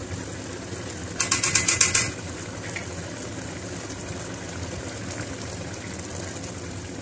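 Steady sound of a pot of rice and beef stock simmering on the stove as its water cooks off. About a second in, a quick rattle of sharp clicks lasts under a second and is the loudest sound.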